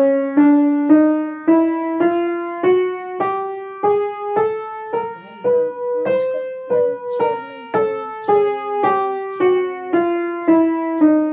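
Weinbach upright piano playing a chromatic scale one note at a time, about two notes a second, rising by semitones through one octave and then coming back down.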